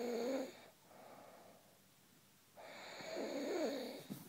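Snoring in long wavering breaths: one snore trails off about half a second in, and after a quiet pause a second one comes about two and a half seconds in. A short snort follows near the end.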